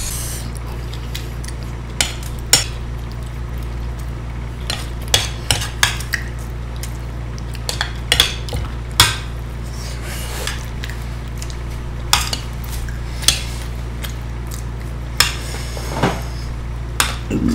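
A metal spoon scraping and clicking against a plate as the last of the macaroni is scooped up: scattered short clicks a second or two apart, over a steady low hum.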